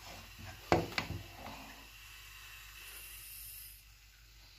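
Faint steady hiss of milk at a frothing boil in a pot on the stove, with two sharp knocks about a second in.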